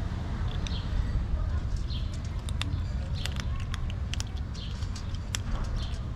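Cats and kittens crunching dry kibble, a flurry of sharp crunches and clicks mostly between about two and five and a half seconds in. Short bird chirps come about once a second over a low steady rumble.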